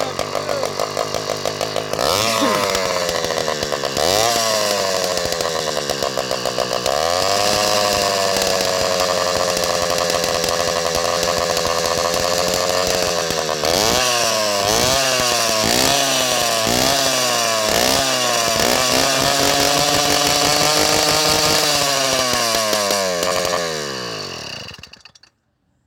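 Two-stroke motorized-bicycle kit engine with a short open exhaust pipe, revved hard: held at high revs, then a string of quick throttle blips, then held high again before winding down and dying away near the end.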